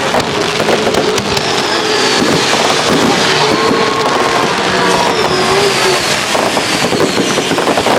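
Off-road race vehicles' engines running loud on the track, revving up and down as they race past, over a steady roar.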